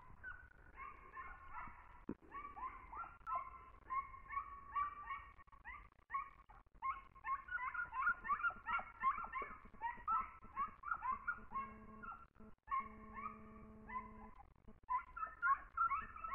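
A pack of hunting hounds yelping and baying in rapid, overlapping cries, giving tongue on a hare's trail. About eleven seconds in, a steady low hum sounds for about three seconds.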